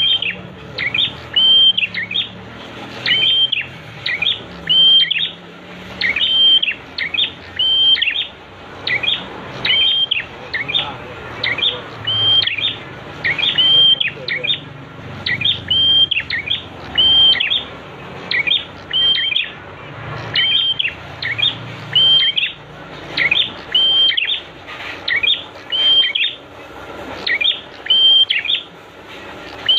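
Prinia (prenjak) song: a short, high chirping call repeated about once a second, over and over.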